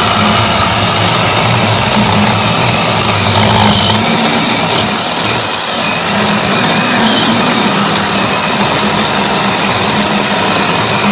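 Battery-powered brushless NaTiddy mini chainsaw running steadily as its chain cuts down through a small log, slicing off a round.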